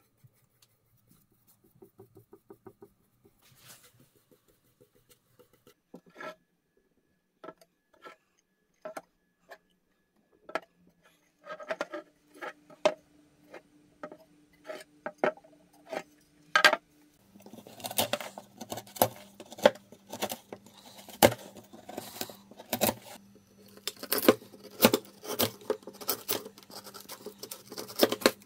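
Bark being prised and split off acacia log slices with a chisel: a dense run of sharp cracks, snaps and scrapes as bark chips break away, loudest and most frequent through the second half over a faint steady hum. Earlier there are only sparse faint clicks and taps.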